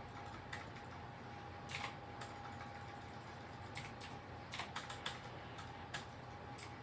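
Pencil drawing on paper in short, quick strokes, about a dozen brief scratchy ticks spaced unevenly, over a faint steady hum.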